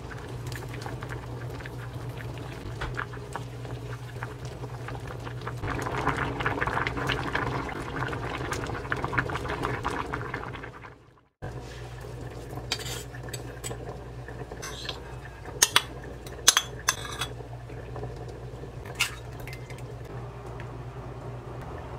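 A spoon stirring doenjang stew in a metal saucepan, louder for a few seconds near the middle, over a steady low hum. After a sudden break, a few sharp clinks of a spoon on ceramic bowls.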